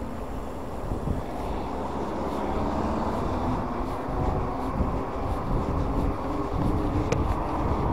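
Wind rushing over the microphone of a bicycle-mounted camera, mixed with tyre noise on asphalt as an e-bike rides along, under a faint steady hum.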